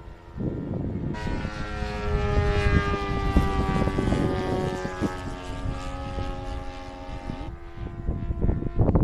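Radio-controlled model airplane's engine and propeller flying past, the pitch sliding down as it goes by, then fading. Wind buffets the microphone throughout.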